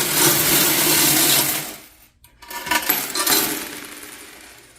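A large mass of coins in a full vending machine coin box clinking and rattling together as the box is handled. The clinking stops about two seconds in, then comes back in a shorter burst that fades away.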